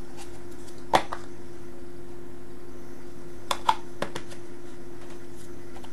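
A few sharp clicks and knocks of a maggot container being handled, once about a second in and then three close together a little past the middle, over a steady low hum.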